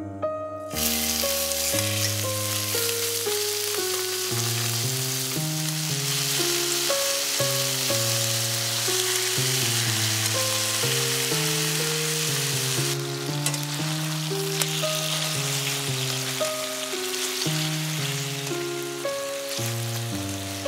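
Boneless chicken thighs sizzling as they brown in hot olive oil in a frying pan; the sizzle starts suddenly about a second in, as the first pieces go into the pan, and stays strong. Soft piano music plays underneath.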